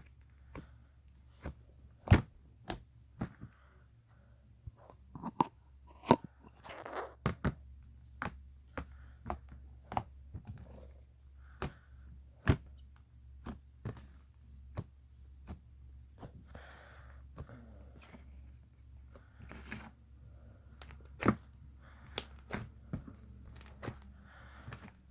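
Slime being squeezed and poked by hand, making many irregular sharp pops and clicks with softer squishing between.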